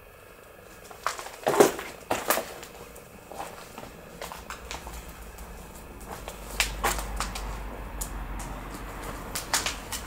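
Footsteps and scattered knocks and crackles of someone moving through a cluttered, debris-strewn room, with a low rumble setting in about halfway.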